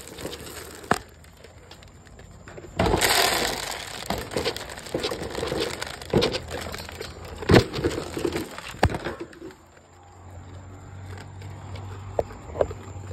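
Dry dog kibble pouring and rattling, broken by several sharp metal clanks from wire dog crates and bowls, the loudest clank about seven and a half seconds in; it quietens after about ten seconds.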